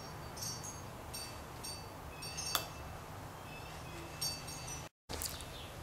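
Steel wrist pin circlip clinking against the piston as it is worked into its groove by hand: a scattered series of short, high metallic pings, with one sharper click about two and a half seconds in.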